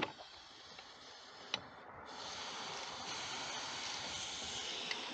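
Two short clicks from the wrench on the AC expansion valve bolt, then about two seconds in a steady hiss starts and holds: leftover freon escaping from the expansion valve fitting as the bolt is loosened, even though the system was evacuated.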